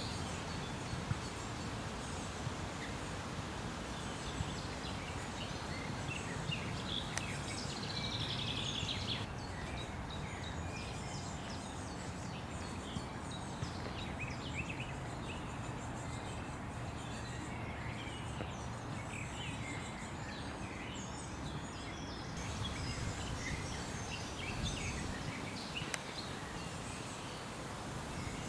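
Outdoor pond ambience: steady background noise with scattered short, high bird chirps throughout, and a rapid songbird trill about eight seconds in.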